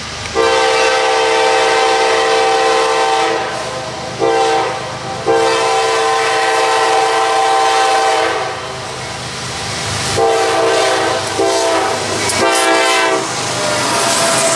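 Train locomotive's air horn sounding six blasts: a long one, a short one, another long one, then three shorter blasts in quick succession near the end, over the continuous rumble of the train on the rails.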